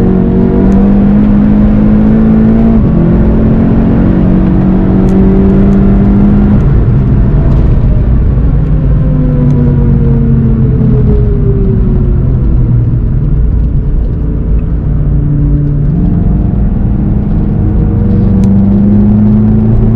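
In-car sound of a car's engine under way on track, its note stepping and gliding in pitch as the car speeds up and then slows, over steady road and wind rumble.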